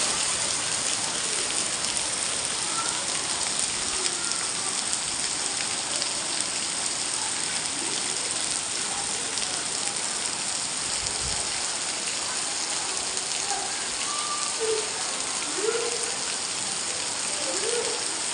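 Steady rain falling, an even hiss of drops that holds at the same level throughout, with a few faint short calls in the background in the later part.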